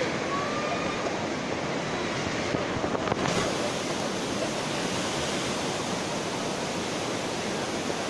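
Rushing water of a shallow rocky river flowing around a stationary 4x4's wheels, a steady even hiss.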